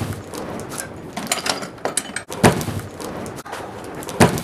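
Heavy steel swivel bench vise being handled and turned on its base: metal rattling and clicking, with three sharp clunks.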